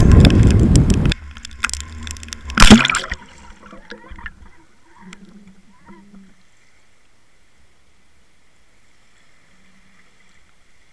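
Wind and surf noise that cuts off about a second in. Then come a loud splash and gurgling as a Water Wolf underwater fishing camera goes into the sea, settling to a faint steady hiss heard underwater.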